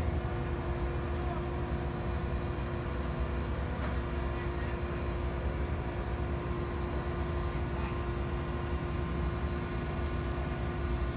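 Crane engine running steadily as it holds a cannon on its sling, a constant low drone with a steady hum over it.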